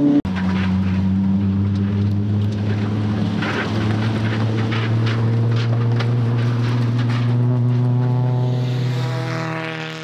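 Hyundai Genesis Coupe race car's 3.8-litre naturally aspirated V6 running at steady revs, a hum with almost no change in pitch. The sound cuts out for an instant just after the start and fades near the end.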